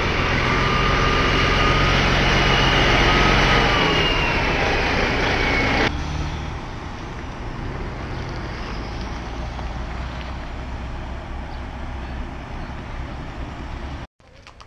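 Heavy diesel trucks running close by, a loud engine hum with a thin high whine over it. About six seconds in it cuts to a quieter, steady traffic rumble.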